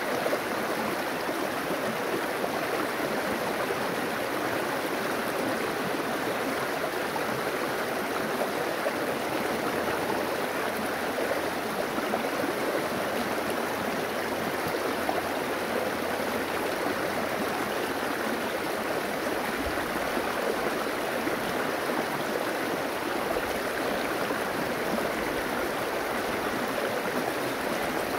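River water flowing steadily, a constant even rush.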